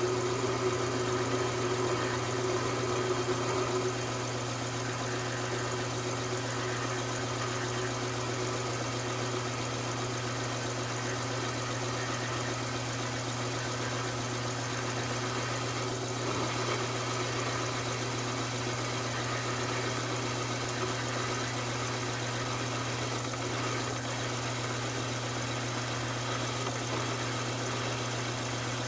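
Taig micro lathe running steadily, its motor and spinning spindle giving a constant hum, while a light finishing cut is taken on a mild steel part with the radius turner. The hum is a little louder for the first few seconds, then holds level.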